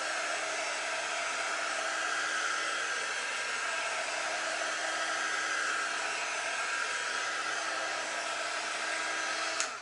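Handheld craft heat gun blowing steadily, a steady rushing whir with a faint hum, drying freshly applied chalk paste on a wooden board. It cuts off suddenly just before the end as it is switched off.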